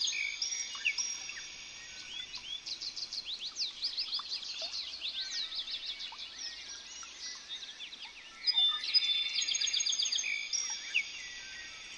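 Birds singing and chirping: a loud phrase of rapid high trilled notes at the start and another from about two-thirds of the way through, with softer scattered chirps in between.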